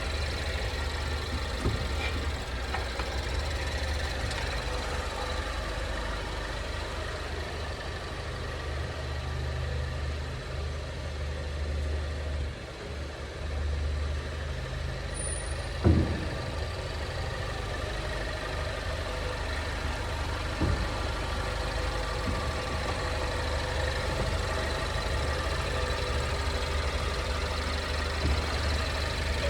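Steady engine and road hum inside a 2020 Ford Mondeo wagon, with one sharp knock from the chassis about halfway through and a couple of fainter knocks elsewhere. This is the abnormal underbody noise that the owner has logged in the month-old car.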